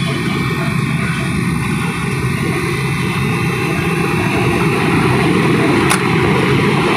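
Walk-in freezer condensing unit running just after start-up: the replacement refrigeration compressor and condenser fan give a loud, steady hum, a little louder about halfway through. One sharp click near the end.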